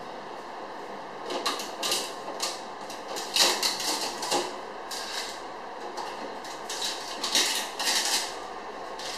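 Packaging of a new refrigerator being handled and pulled away: a run of short, irregular rustling and scraping noises, coming in clusters, loudest about three and a half seconds in.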